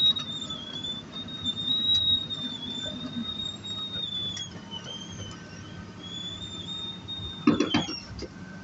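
Komatsu PC200 hydraulic excavator working, a high, slightly wavering squeal held over the low running of the engine. The squeal stops near the end, where a couple of sharp metallic knocks sound.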